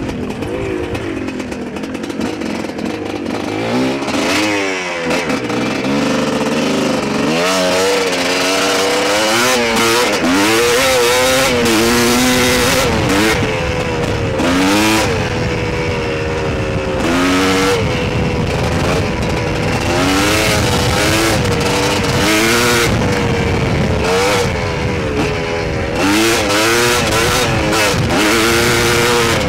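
GR7 250 two-stroke enduro motorcycle engine, heard from on board, revving up and falling back again and again as the rider rolls the throttle and shifts along a dirt track. The bike is being ridden gently while it is run in.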